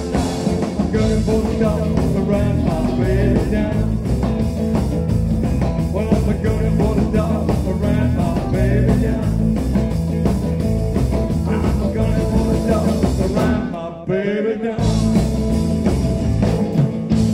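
Live rock and roll band playing: electric guitars, bass and drums with a male lead vocal over a steady beat. The band stops for a moment about three-quarters of the way through, then comes back in. Recorded from the audience on a mobile phone.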